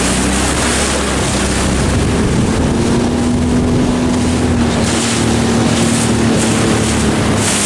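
Motorboat's outboard engine running steadily, its pitch rising a little about two and a half seconds in, with wind buffeting the microphone and water rushing past.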